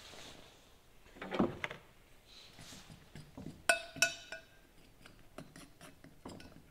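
Batter being stirred in a glass mixing bowl, the utensil clinking against the glass: one sharp ringing clink about four seconds in, then several lighter taps.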